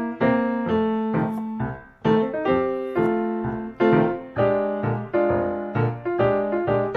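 Background piano music, notes struck in a steady rhythm.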